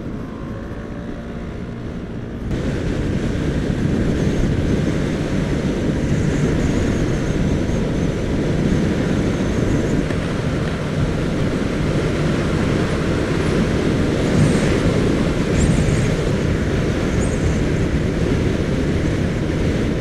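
Riding a motor scooter at road speed: wind rushing over the camera microphone, with engine and tyre noise underneath. It jumps louder about two and a half seconds in and then holds steady.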